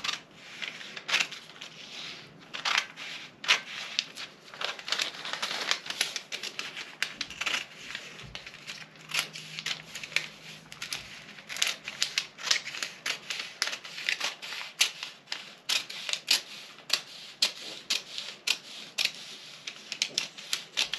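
Scissors cutting through a pattern: a long run of short snips, two or three a second, as the blades close over and over along the cut line.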